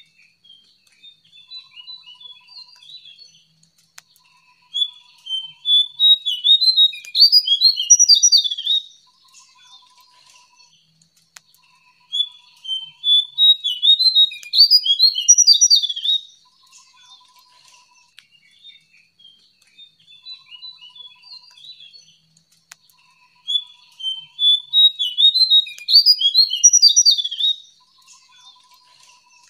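Jongkangan bird singing: three loud runs of quick notes that jump up and down in pitch, each about four seconds long and roughly ten seconds apart, with softer twittering between them.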